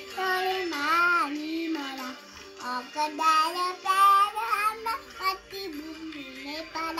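A young boy singing a national anthem in a high child's voice, in sung phrases with short breaks between them.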